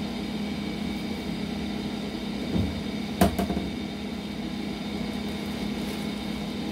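Steady electrical hum, with a soft thump about two and a half seconds in and a sharp knock just after three seconds, as things are handled and set down.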